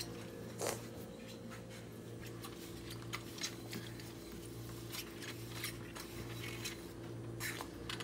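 Faint, scattered light clicks and clinks of dishes and utensils being handled at a kitchen sink, over a steady low hum.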